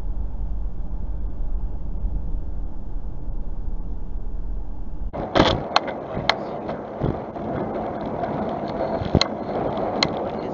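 Car driving on a freeway, heard from inside the cabin as a steady low rumble of engine and road noise. About five seconds in it changes abruptly to another car's cabin at low speed, with a harsher rushing road noise and several sharp knocks and clicks.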